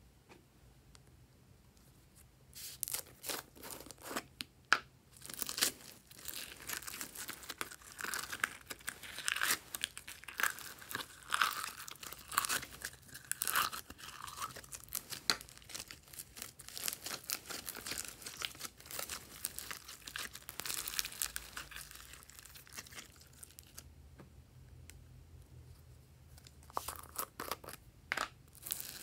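Small foam beads tipped out of a plastic tub and handled over a bowl of slime: a long run of crackling and rustling that starts a few seconds in, eases off later, then picks up again briefly near the end.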